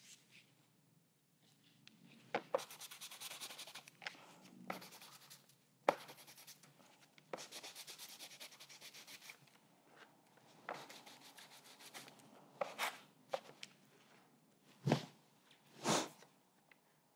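A rag rubbed back and forth by hand over the rough, paint-covered joint-compound texture of a painting on heavy watercolour paper. It comes as several scratchy stretches of a second or two each, with a few light knocks between them and two duller thuds near the end.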